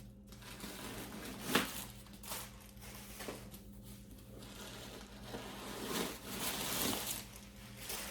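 Rustling and crinkling of packaging as a new leather handbag still in its wrapping is handled and turned over, in scattered short rustles, a sharper crinkle about a second and a half in and a longer rustle near the end.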